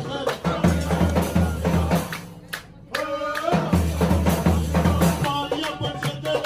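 Live folk music: a large bass drum and frame drums keep a strong, even beat while a man sings. About two seconds in the drumming drops away briefly for a held note, then the beat comes back.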